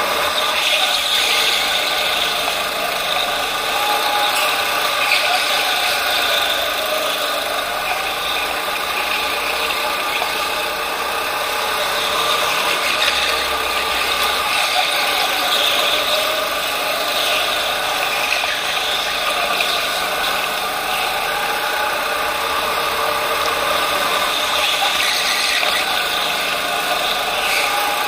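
Onboard sound of a racing go-kart driven hard around a tight indoor track: its motor's whine rises and falls in pitch as it speeds up on the straights and slows for the corners, over a steady mechanical rattle from the kart.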